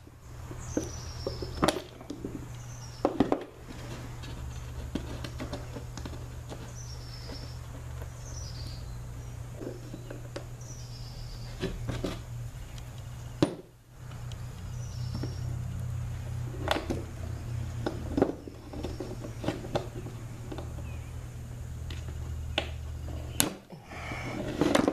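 Sharp metallic clicks and taps of hand work on a roller chain's master link as its spring clip is being fitted, a few of them louder knocks. Under them runs a steady low hum, and short high falling chirps repeat every second or two.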